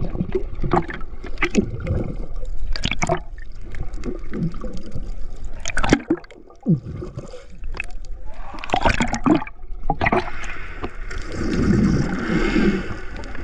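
A swimmer heard through an underwater camera: muffled water gurgling and sloshing with repeated splashes, then a hissing rush of bubbles breathed out underwater near the end.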